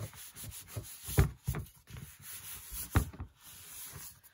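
Hands handling an altered book and its paper pages on a work table: rubbing and shuffling, with a few light knocks and two sharper ones, about a second in and about three seconds in.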